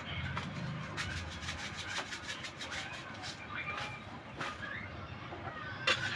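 Chickens clucking with short, repeated calls, amid scattered clicks and clinks of kitchen utensils.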